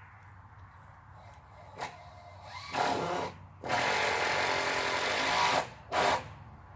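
Power drill running in four trigger-pulled bursts, the longest about two seconds, driving fasteners.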